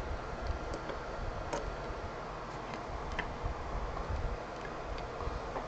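A few faint, scattered clicks and taps of trading cards being handled on a table, over a steady low room hum.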